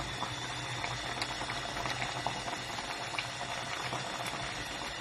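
Thick chili con carne of ground beef, beans, corn and tomato bubbling at a simmer in a pot on the stove, with many small irregular pops over a steady low hum.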